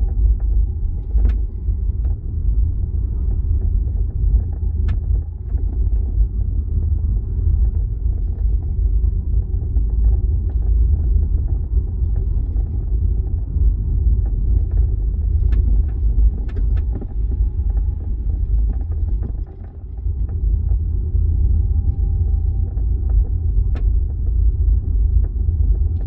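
Steady road rumble from a 2025 Hyundai Ioniq 5 Ultimate on the move, with irregular sharp clicks and creaks throughout: a rattle and creak from the boot area.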